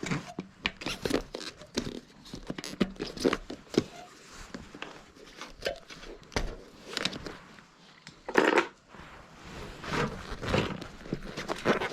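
Hands working on a bicycle wheel while its tyre is swapped for a thinner one: irregular rubbing, crinkling and clicks, with a louder scraping rush about eight and a half seconds in.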